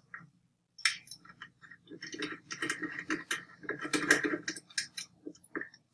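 A small Phillips screwdriver unscrewing a screw from the plastic roller end cap of a Gtech AirRam vacuum: a run of small, irregular clicks and scrapes that starts about a second in.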